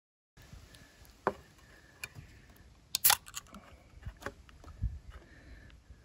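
Faint outdoor background with scattered small clicks and taps of objects being handled, the loudest a sharp click with a short hiss about three seconds in.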